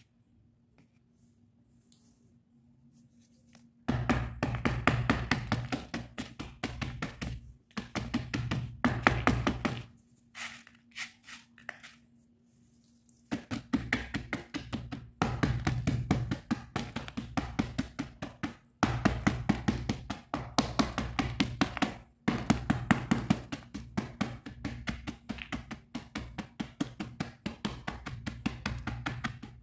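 Balls of slate pencil being pounded and crushed with a dark pestle on cardboard: rapid crunching thuds, several a second, in runs broken by short pauses. The pounding starts about four seconds in, and a stretch of a few light taps near the middle comes before it picks up again.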